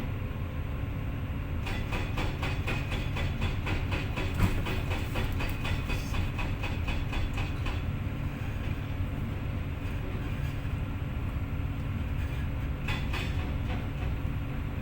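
Volvo EC550EL excavator's diesel engine running steadily, with a fast metallic clatter from about two seconds in until past the middle, and a shorter burst of it near the end.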